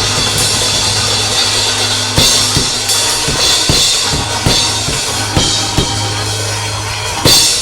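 Church band drum kit playing irregular bass-drum and snare hits over a steady held low note, with one louder crashing hit near the end.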